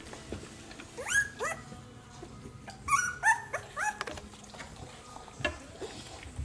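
Two-week-old puppies squeaking and whimpering: short, high calls that rise in pitch, two about a second in, then a quick run of about five around three to four seconds in.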